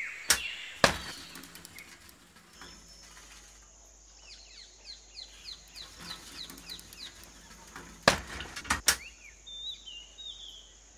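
Small birds chirping, with a quick run of falling chirps in the middle and more short calls near the end. A few loud, sharp clacks about eight seconds in, as a bicycle is propped on its stand, and two sharp clicks at the very start.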